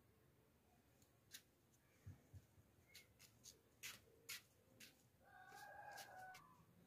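Near silence, with faint scattered clicks and rustles from hands handling a tomato and a cluster of mustard flowers. A faint pitched sound comes in about five seconds in and lasts about a second.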